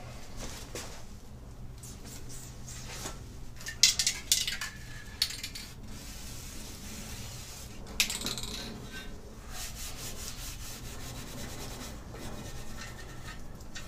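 A cloth rag rubbing and wiping a black plastic engine-bay top cover, with a few sharp plastic knocks as the cover is handled, the loudest about 4 seconds in and again about 8 seconds in. A steady low hum runs underneath.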